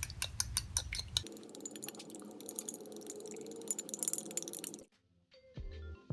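Eggs being whisked in a bowl, the utensil clinking rapidly against the bowl at about five strokes a second. The clinking stops about five seconds in, and soft background music begins near the end.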